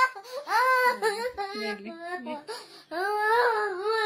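A young child wailing and sobbing in grief: high, drawn-out cries broken by catches of breath, with a long wavering wail starting about three seconds in.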